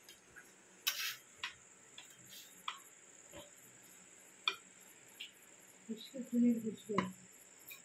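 Metal ladle stirring chicken biryani in a metal pot: scattered sharp clinks and light scrapes of metal on metal, about half a dozen spread through.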